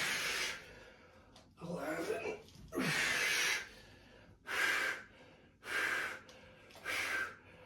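A man breathing hard and gasping, out of breath from a set of chin-ups: about six loud, rasping breaths in and out, roughly a second apart, a couple of them with voice in them.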